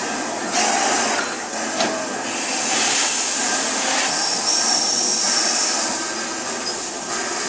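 LNER B12 steam locomotive pulling away slowly, its exhaust chuffing in slow, separate surges of steam hiss over the running noise of the engine.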